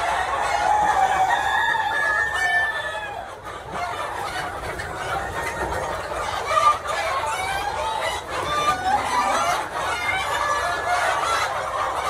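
A large flock of hens and roosters clucking and calling over one another without a break, with a rooster crowing among them.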